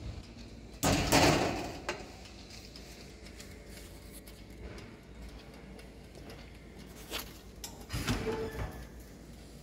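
Metal loaf pans scraping and rattling as they are slid across a Signora Galaxi Gold countertop oven's wire rack, about a second in. Near the end the oven's glass door is swung shut with a few knocks.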